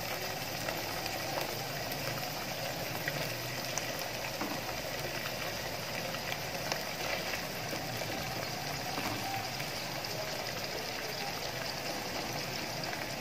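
Thick masala gravy sizzling and bubbling steadily in a non-stick wok, with scattered faint ticks and pops. The ghee has separated out, so the masala is frying in its own oil.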